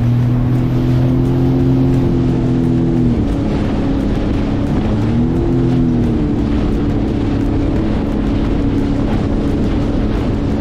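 Sea-Doo RXT 300 jet ski's supercharged Rotax three-cylinder engine running under way as the ski picks up speed, its note wavering about three seconds in, over the steady rush of water and wind along the hull.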